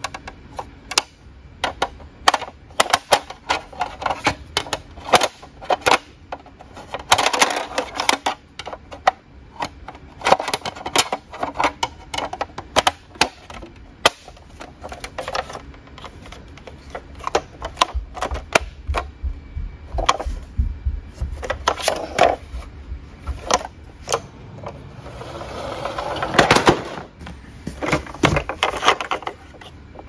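Hard plastic toy vehicles being handled and knocked about in a cardboard box: a long, irregular string of clicks, taps and clatters, with a longer scraping rush near the end.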